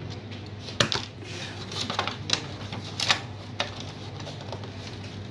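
Sharp plastic clicks and snaps, about five of them spread over a few seconds, as the rear cover of an HP LaserJet MFP M233 printer is pried loose from its latches.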